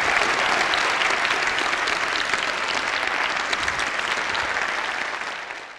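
Audience applauding steadily, dense clapping that fades away near the end.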